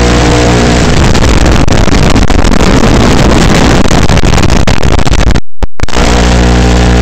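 3-inch FPV quadcopter's brushless motors, heard loud and distorted through the craft's onboard video-transmitter microphone. A steady hum breaks into a rough, noisy rush about a second in, and the audio cuts out for about half a second near the end before the hum returns.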